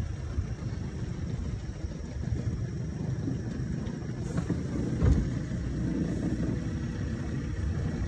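Boat motor running slowly, a steady low rumble, with a single thump about five seconds in.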